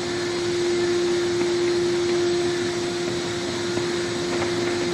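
ZP680C rotary tablet press running steadily, an even mechanical whir with a steady hum tone in it.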